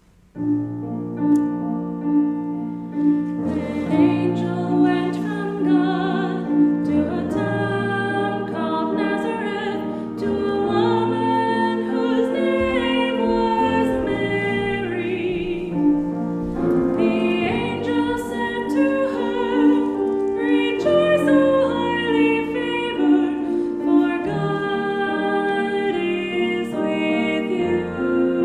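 Worship song sung by voices with piano accompaniment, starting about half a second in.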